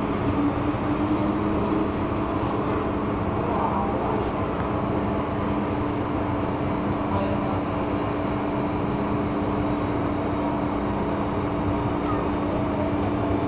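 Inside an MTR M-Train metro car running through the tunnel: a steady rumble of wheels on rail, with a steady hum of several tones over it.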